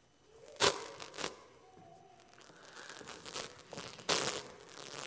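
Handling noise: rustling with a few sharp knocks, one sharp knock about half a second in and louder bursts of rustling near the end.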